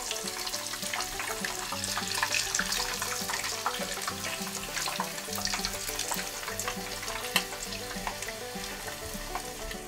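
Filled wontons deep-frying in hot oil in a small saucepan: a steady sizzle full of fine crackles, with one sharper click about seven seconds in.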